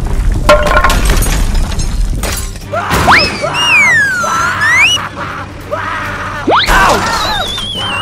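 Cartoon sound effects: a loud rumbling crash with breaking noises, then whistle-like tones that glide up, down and up again, a quick rising glide, and a wavering falling tone near the end.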